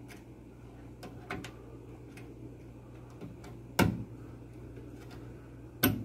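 Plastic wire connector being pushed onto the spade terminals of a microwave door interlock switch: a few light clicks and taps, then two sharp clicks about two seconds apart as it seats.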